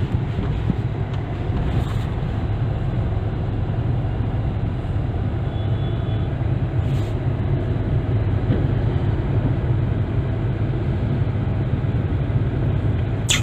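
Steady low rumble of a car driving, heard from inside the cabin: engine and road noise. A short sharp click comes near the end.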